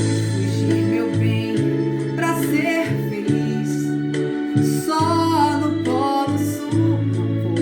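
Brazilian popular music (MPB): a voice sings over instrumental accompaniment with a steady bass line.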